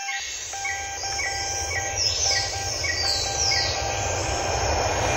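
Background soundtrack: a short pitched note repeated about twice a second over a low rumble, with a few falling whistles in the middle.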